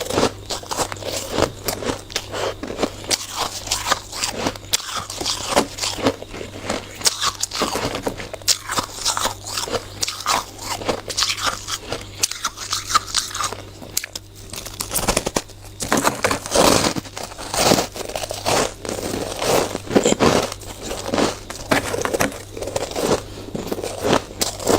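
Close-up crunching of a person biting and chewing hard, frosty shaved ice, a dense run of irregular crackling crunches that grows heavier about two-thirds of the way through.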